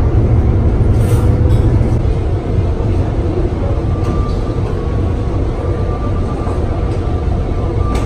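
Steady low rumble of a cruise ship's engines heard from inside the vessel, with a faint steady whine in the second half.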